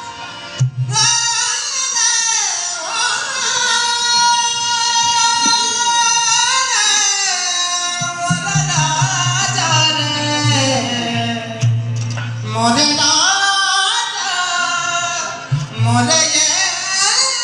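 Hindi Christian devotional song (masih geet): a voice singing a gliding melody over instrumental backing, with a deep bass coming in about halfway through.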